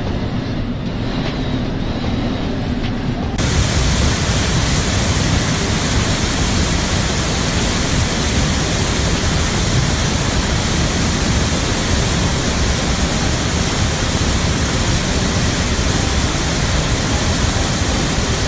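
Muddy floodwater rushing down a walled channel and pouring through a bridge's arches, a steady, dense rush that starts abruptly about three and a half seconds in. Before it, a lower rumble aboard a ship's bridge in heavy seas.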